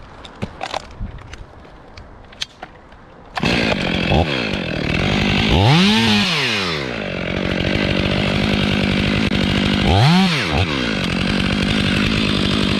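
Stihl chainsaw, after a few light handling clicks, starts running loud about three seconds in and cuts, its engine pitch swooping up and back down twice. It is cutting small wing cuts through the bark of a mountain ash trunk, which keep the bark from tearing down and pulling the rope out when the top falls.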